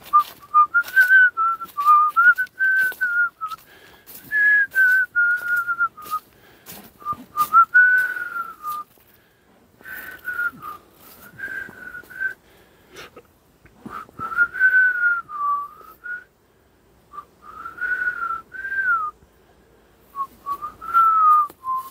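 A person whistling a tune, in several phrases broken by short pauses, over scattered light clicks and knocks.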